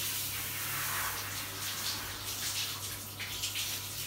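Handheld shower head spraying water onto a dog's wet coat in a shower stall; the hiss of the spray turns patchy and uneven after about a second and a half. A steady low hum runs underneath.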